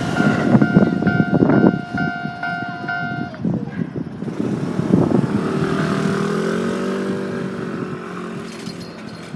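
Railway level-crossing warning bell ringing in a rapid, regular two-tone clang for about three seconds, then stopping as the train clears. A road vehicle's engine then pulls away, its pitch rising and levelling off.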